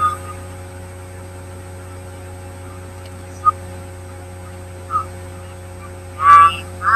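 Steady electrical hum with a few faint, brief chirps and one click. Near the end comes a loud, short, high-pitched cry.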